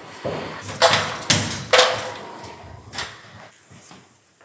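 Footsteps on a hard floor: three sharp steps in quick succession about a second in, about half a second apart, then another near the middle, with fainter steps fading toward the end.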